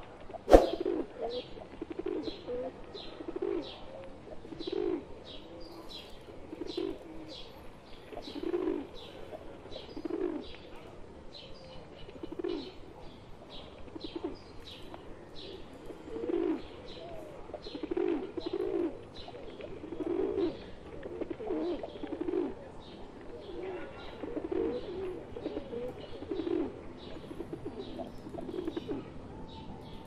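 A flock of feral rock pigeons cooing over and over, with short high chirps from other birds throughout. A single sharp knock about half a second in is the loudest sound.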